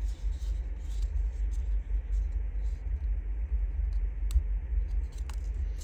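A steady low rumble with faint paper rustles and a few small clicks as a square of book page is folded and creased by hand.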